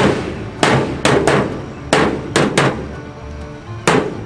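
An old toaster oven being beaten, about seven hard blows at an uneven pace, a couple in quick pairs, each with a short metallic ring.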